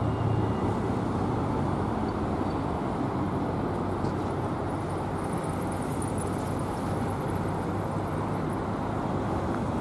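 Steady outdoor road-traffic rumble, even throughout, with no distinct events.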